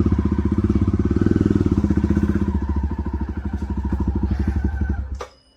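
Jawa Perak's single-cylinder engine idling through its exhaust with both dB killers removed, giving an open, pulsing exhaust note. The engine is switched off about five seconds in and the sound cuts off.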